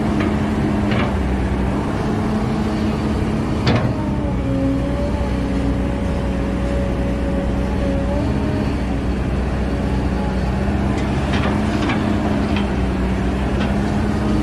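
Kobelco excavator's diesel engine running steadily, with a higher whine that wavers over it. Sharp metallic clanks ring out now and then: the loudest about four seconds in, and a quick run of them near the end.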